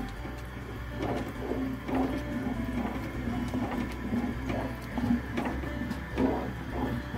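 A spoon stirring and scraping thick hareesa porridge in a metal cooking pot, in steady strokes about twice a second.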